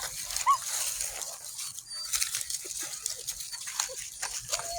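Puppies giving a few short, high whines, one about half a second in and more near the end, over a crackle of dry leaves as they scuffle about.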